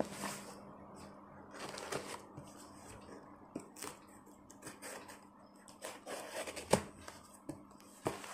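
Cardboard shipping box being opened by hand: packing tape peeled and torn from the edge, and cardboard flaps rustling and scraping. Scattered short crackles and clicks throughout, the sharpest one about seven seconds in.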